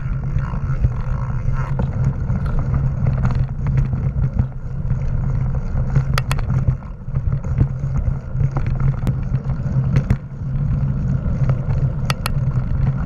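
Mountain bike riding fast over a dirt singletrack, heard from a camera mounted on the bike: a steady rumble of wind and knobbly tyres on the trail, with sharp knocks and rattles over bumps, a pair about halfway through and a pair near the end.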